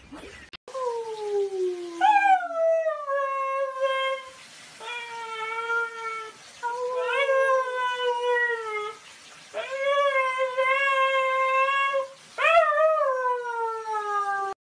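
A husky puppy howling: about six long howls in a row, each held at a fairly steady pitch, several of them dropping in pitch at the end.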